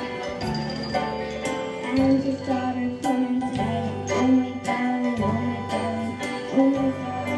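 A girl singing a melody into a handheld microphone over a recorded backing track with bass and a steady beat.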